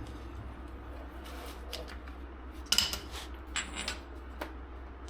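A few light metallic clinks and clatters of hand tools being handled, the loudest nearly three seconds in, over a steady low hum.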